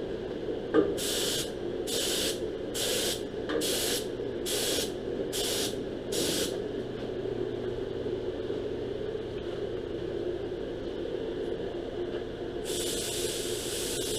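Paint spray gun spraying a thin coat of POR-15 rust coating: a run of about seven short hisses, each under half a second, then a long unbroken hiss starting near the end, over a steady hum.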